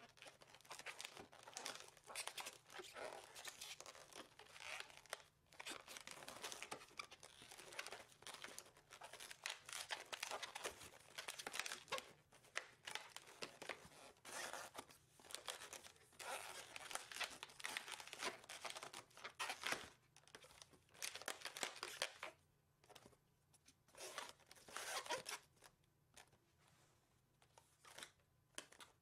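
A single latex 260 modeling balloon being twisted and handled: the rubber rubs and crinkles under the fingers in faint, irregular bursts that grow sparser over the last several seconds.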